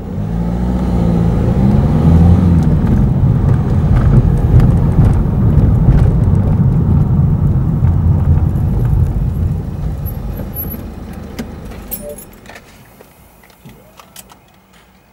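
Car engine and road noise as the car drives up and slows to a stop. The rumble dies away from about ten seconds in, leaving a few light clicks near the end.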